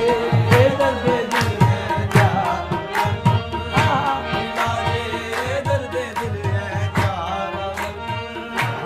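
Qawwali music: tabla playing a steady run of sharp strokes over held melodic accompaniment.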